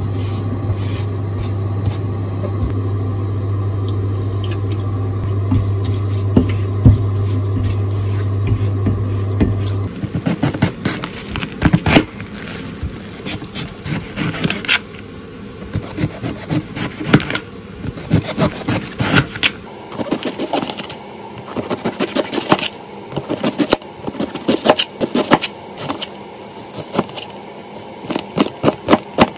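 Konjac noodles frying in a pan for about ten seconds, over a steady low hum. Then a kitchen knife slices cabbage thinly on a plastic cutting board, a long run of quick knocks of the blade on the board.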